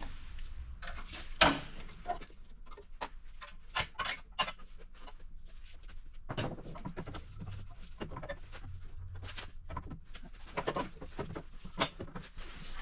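Metal clicks, clinks and scrapes as exhaust springs are unhooked from a snowmobile's exhaust pipe, with one sharp snap about a second and a half in.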